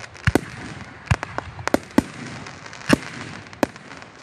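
Aerial fireworks shells bursting overhead: about nine sharp bangs at uneven intervals, several coming in quick pairs.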